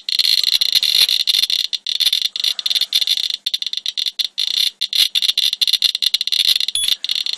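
Inspector EXP+ Geiger counter chirping on every detected count, a fast irregular stream of short high beeps at about 37 counts a second. The rate is the sign of a radiation level some 65 times normal background in the rain-swipe sample.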